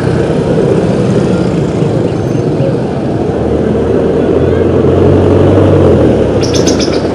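Busy street traffic, with a passenger jeepney's diesel engine rumbling louder as it draws close, loudest about five to six seconds in. A quick run of sharp clicks comes near the end.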